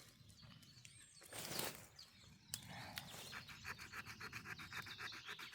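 Small saw blade of a Mikov pocket knife cutting a thick, resin-filled branch. A brief rustle comes first, then from about three seconds in a fast, even run of rasping saw strokes.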